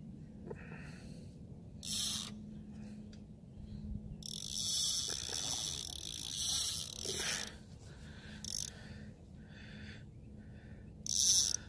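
Avet MXL 5.8 conventional fishing reel under load while a large fish is fought, giving bursts of high-pitched buzzing and clicking. The longest burst runs from about four to seven and a half seconds in, with shorter ones near two seconds and near the end, over a steady low hum.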